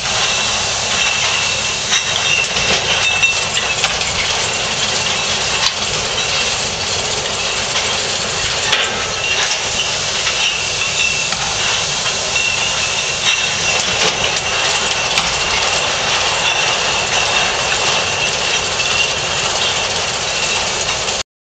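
Bottling machine on a mineral water line running steadily: a constant high whine over hiss, with many light clicks and clinks from the green glass bottles moving through it. The sound cuts off suddenly near the end.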